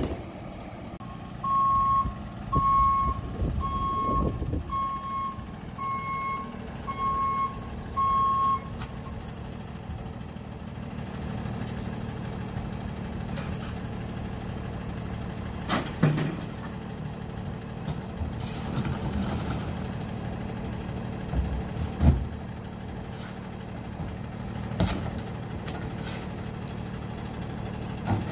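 Freightliner M2 rear-loader garbage truck's backup alarm beeping seven times, about once a second, over the engine running. The engine then idles on, with a few sharp clunks.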